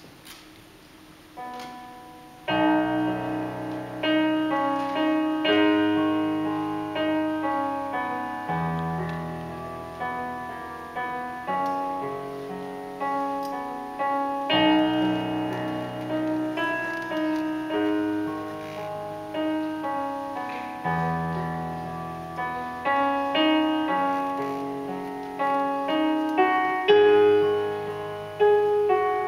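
Digital piano playing a slow, peaceful solo piece. After a quiet start and a single note, low bass notes held a couple of seconds each sound under a melody line.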